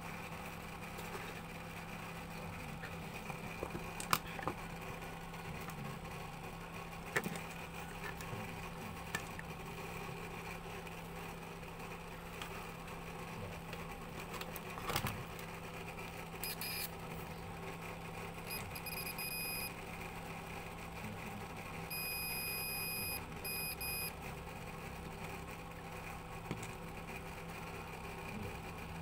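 Electronic beeping: a few short beeps about two-thirds of the way in, then a longer, broken beep, over a steady low hum with a few sharp clicks.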